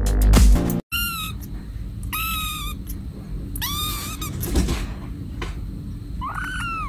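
Electronic music cuts off about a second in, then a very young kitten mews four times, short high calls that each rise and fall in pitch, over a low steady background hum.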